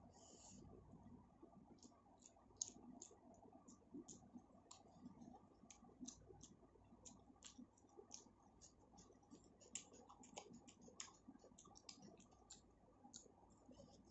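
Close-miked chewing and wet mouth clicks of someone eating, as small irregular clicks several times a second.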